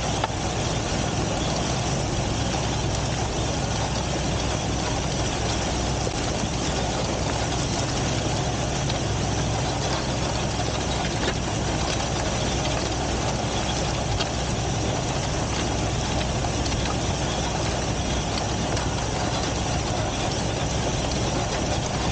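Tractor-drawn air seed drill working through a field, heard from on the drill: a steady mechanical rumble with the tractor's engine running behind it.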